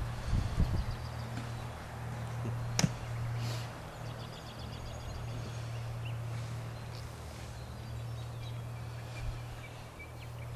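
Outdoor quiet with birds chirping in short repeated notes over a steady low hum, and a single sharp click about three seconds in.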